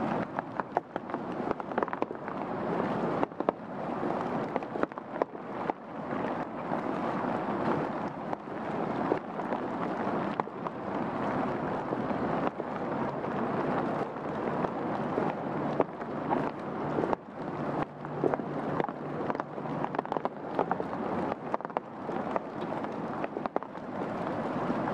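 Steady rain falling through the tree canopy, with many close drops tapping sharply and irregularly on leaves and the wet path.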